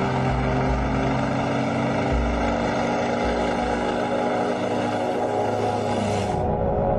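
Propeller aerobatic plane's engine and propeller running steadily, with its high hiss dropping away near the end.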